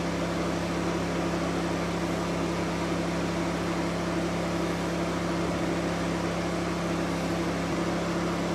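Steady, unchanging machine hum with a low drone, like a running fan or cooling unit.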